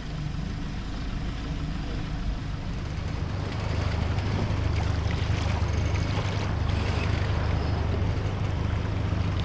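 Wind and water noise aboard a sailboat under way, with a low rumble that grows louder about three and a half seconds in and then holds steady.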